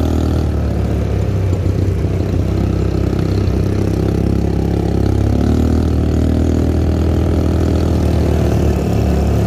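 ATV engine running steadily at an even speed, its low drone holding throughout.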